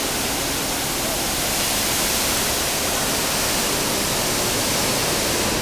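A large plaza fountain's ring of vertical water jets spraying and crashing back into the basin: a steady, loud rush of falling water.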